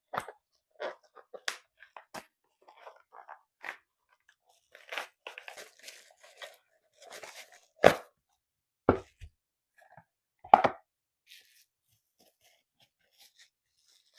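A cardboard product box and its packing being opened and handled by hand: scattered crinkling and rustling, with a few sharp knocks, the loudest about eight and ten and a half seconds in.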